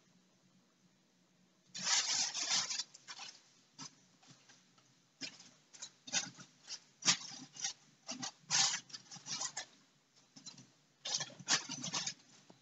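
Clear plastic bag crinkling and rustling in irregular bursts as cats paw at it, starting about two seconds in.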